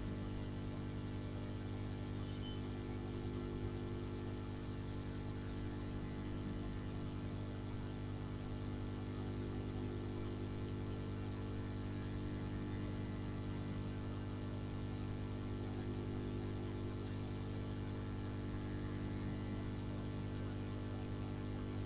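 Steady electrical mains hum with a faint hiss underneath, unchanging throughout.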